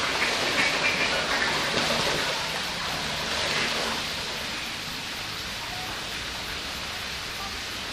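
Mallard ducks splashing and thrashing in the water, loudest over the first few seconds, then settling into a steady rush of water.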